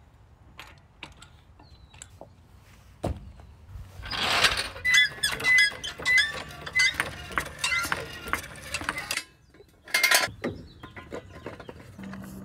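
Metal-on-metal clicks and rattles of tire-changing tools as a lug wrench works a pickup's lug nuts and a floor jack raises the truck onto jack stands. Scattered clicks come first, then a dense stretch of ratcheting and clanking with short squeaks from about four seconds in, and a loud clank near the ten-second mark.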